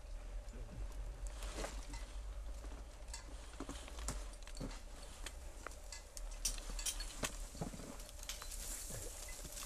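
Scattered light knocks and scrapes, a few every second and most frequent in the second half, over a low steady rumble and a faint steady hum.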